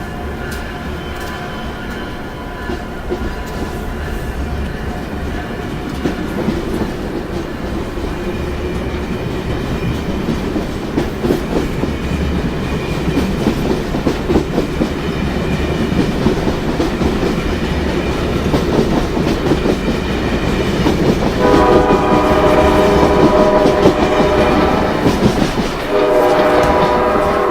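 Passenger train passing at speed on electrified main line, with wheels rumbling and clattering on the rails, growing louder. About three-quarters of the way in, the train's multi-note air horn sounds, breaks off briefly, then sounds again.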